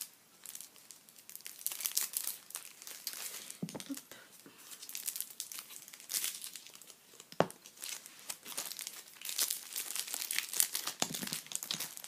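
Plastic wrapping crinkling and rustling as makeup brushes are pulled out of it, in irregular crackles with a sharp click about seven seconds in.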